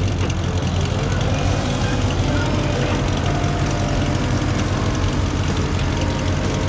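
A large motor vehicle's engine running steadily with a deep, even rumble.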